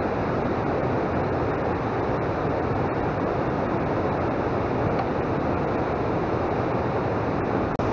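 Steady, even rushing of wind and moving water, with no distinct events.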